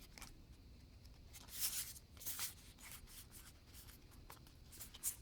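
Faint rustling of Pokémon trading cards and their booster-pack wrapper being handled, with two short swishes and a few light ticks near the end.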